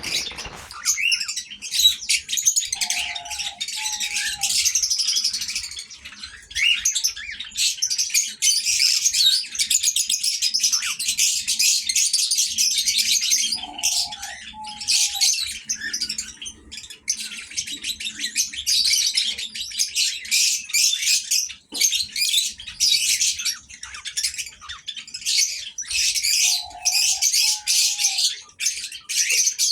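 Young cockatiels chirping and chattering almost without pause, with a faint low two-note call coming back three times.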